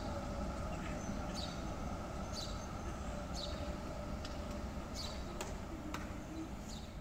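City street ambience: a steady low rumble of distant traffic, with short high chirps about once a second.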